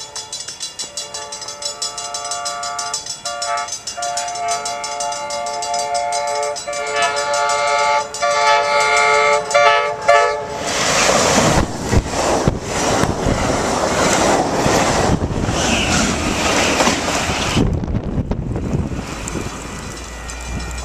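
A passenger train's multi-tone air horn sounding several blasts as it approaches, then the train passing close by, with the loud rush and clatter of its wheels on the rails for about seven seconds before it eases off.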